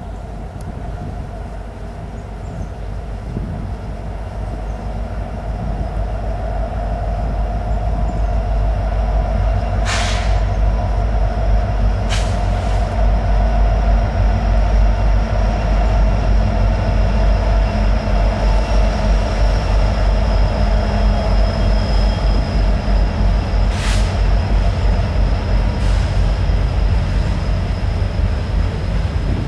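Slow freight train passing, led by EMD SD70M-2 and SD60F diesel locomotives: a heavy low rumble that grows louder over the first half and then holds, with a thin high steady whine over it and four sharp knocks.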